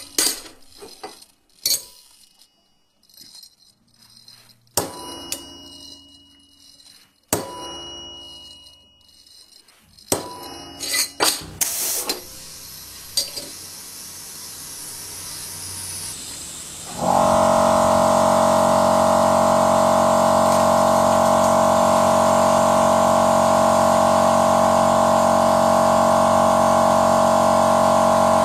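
A string of sharp knocks and clanks, each with a short ringing tail, then noise that builds gradually. About seventeen seconds in, a loud, steady machine drone at one fixed pitch starts abruptly.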